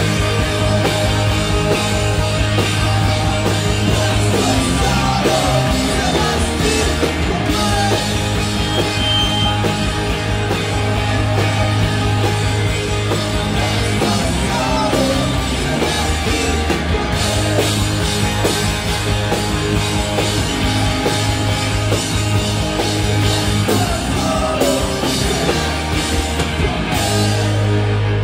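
Live post-rock/emo band playing loud: electric guitars, bass and drums, with a sustained low bass note through most of the song.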